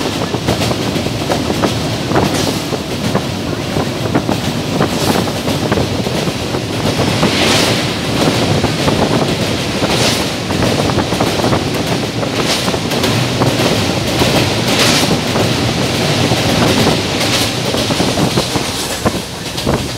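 Express train running over a steel girder bridge, heard from aboard: a continuous rumble and clatter of the wheels on the rails with wind rush. A brighter hiss recurs about every two and a half seconds.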